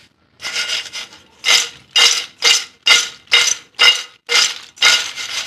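Crispy fried wheat-flour nacho chips rattling against a steel bowl as it is tossed, in rhythmic shakes about two a second.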